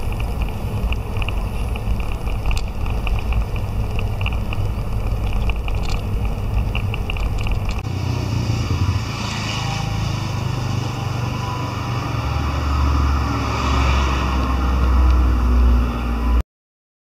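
Outdoor ambience: a steady low rumble with light rustling and faint ticks. About halfway through it gives way to a steadier low hum with some hiss, then cuts off suddenly near the end.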